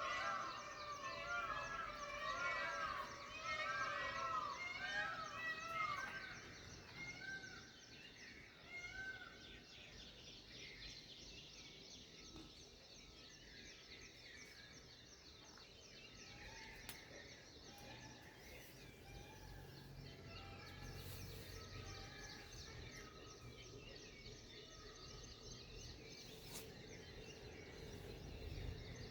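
Birds calling, many at once: a dense, loud chorus of short chirping notes for about the first six seconds, then fainter, scattered calls over a steady low background hum.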